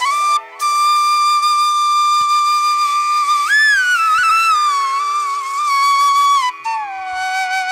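Background music: a flute playing a slow melody of long held notes that bend and slide, over a steady drone. A short break about half a second in; one note swoops up partway through, then the line sinks gradually.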